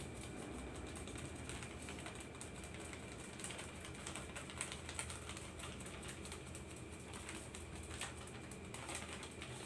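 Salt trickling from a small plastic bag onto a basin of shredded bamboo shoots, salting them for sour fermented bamboo shoots: faint, irregular light ticks over a steady low hum.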